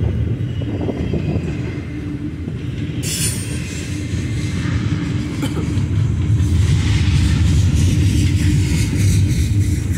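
Double-stack intermodal freight train rolling past: a steady low rumble of the cars on the rails, with a brief high-pitched wheel squeal about three seconds in and wheels clicking over rail joints later on.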